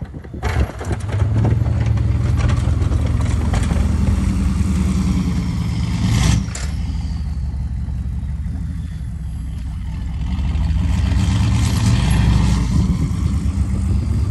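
Straight-piped 6.5 L Detroit turbo-diesel V8 of a Chevy K2500 pulling hard under plowing load, with a high turbo whistle that falls in pitch. About six seconds in comes a brief loud clatter. The engine eases off for a few seconds, then pulls hard again.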